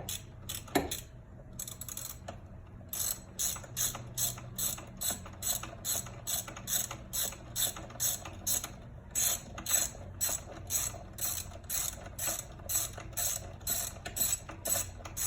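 Socket ratchet clicking as it is swung back and forth through a universal joint to turn a spark plug in the engine bay. A few scattered clicks come first, then about three seconds in it settles into a steady rhythm of about three clicks a second.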